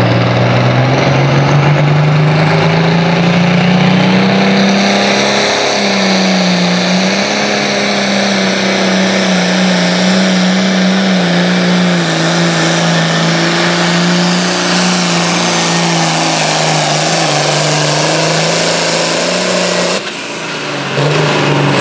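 1972 John Deere 4320 hot farm tractor's turbocharged six-cylinder diesel at full throttle on a pull. The engine note climbs over the first five seconds or so, then holds high and steady under load, with a brief drop in level near the end.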